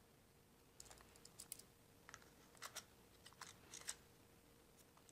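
Faint clicks and taps of hard plastic parts being handled: a coil being fitted into the grey plastic housing of a small LSIS MC-series contactor. A dozen or so short clicks come in small clusters, starting about a second in and stopping about four seconds in.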